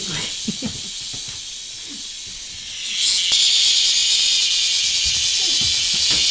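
Cicada buzzing, a steady high hiss that becomes much louder about three seconds in as a cicada close by starts up over a fainter cicada drone.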